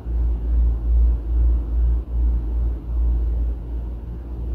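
A low rumble that swells and fades unevenly, with a faint hum underneath.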